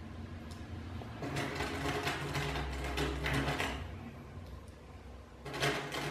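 Small 6.35 mm airgun pellets rattling and clinking in an open metal tin as fingers pick them out one at a time to load a rotary magazine. A stretch of quick metallic clicking starts about a second in, and a second one comes near the end.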